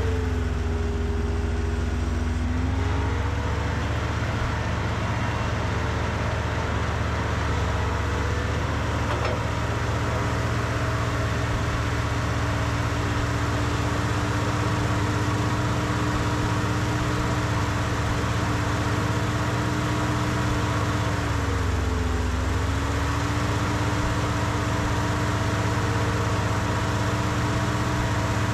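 An engine running steadily. Its pitch rises a little in the first few seconds, then dips briefly and recovers about three-quarters of the way through.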